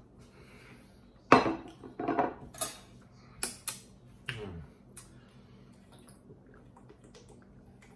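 A plate and a stainless-steel bowl with a utensil in it set down on a table: a loud clatter about a second in, then several smaller clinks and knocks.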